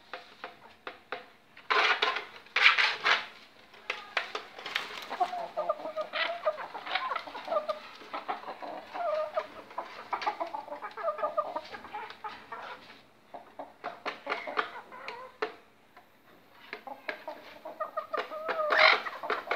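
Caged hens clucking in runs of short, repeated low calls, with sharp clicks and two loud, harsh bursts about two seconds in.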